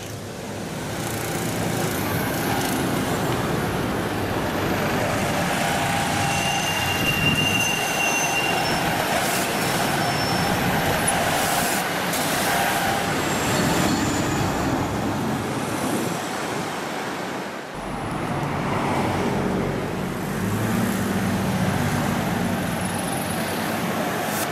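Busy street traffic: vans, a truck and cars passing and idling, with a brief high squeal about seven seconds in.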